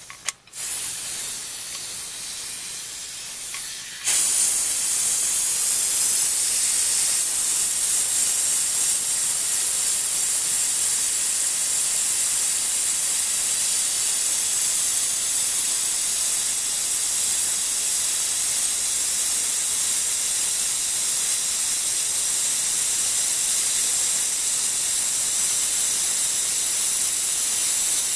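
Pneumatic vacuum brake bleeder hissing as compressed air runs through its venturi, drawing brake fluid through a clear tube from the rear drum brake's wheel-cylinder bleed screw. The hiss starts softer and becomes louder and steady about four seconds in.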